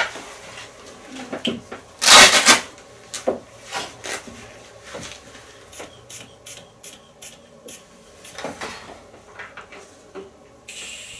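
A blood-pressure cuff being put on and handled: a loud rasp of its hook-and-loop strap about two seconds in, then scattered light clicks and rustles.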